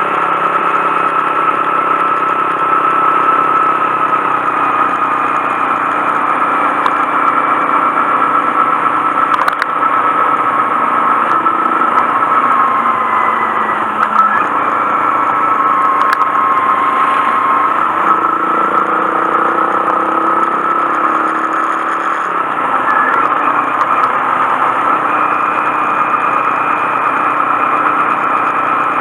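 Honda Monkey 125's single-cylinder engine running under way, its pitch falling and rising a few times.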